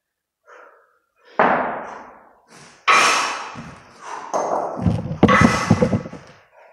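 Kettlebell long cycle with two 32 kg kettlebells: the lifter's hard, sharp breaths and the thuds of the bells. There are two sudden loud sounds about one and a half and three seconds in, then a quicker run of thumps as the bells are dropped and swung back up into the rack near the end.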